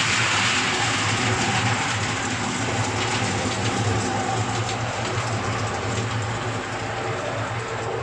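Miniature ride-on train running on its track: steady rumble and light clicking of the wheels on the rails over the low hum of the locomotive's 1980s ride-on lawn mower engine. It starts inside a tunnel and grows gradually quieter as the train comes out.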